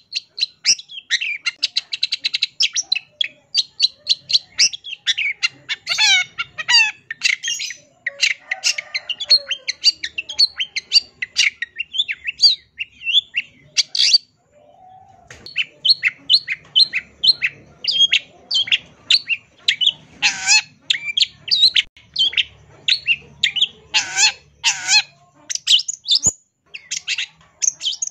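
Long-tailed shrike singing a long, rapid, chattering song, a varied stream of quick notes packed with phrases mimicked from other birds, with a pause of about a second roughly halfway through.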